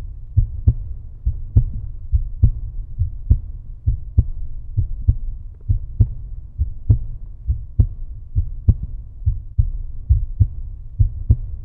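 Deep, regular thumping beat: a strong low thump a little under once a second with softer thumps between, like a heartbeat.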